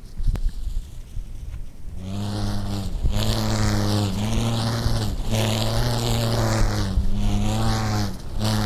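Prism Quantum stunt kite buzzing in flight: a loud, steady low hum with overtones that starts about two seconds in and breaks off briefly about once a second.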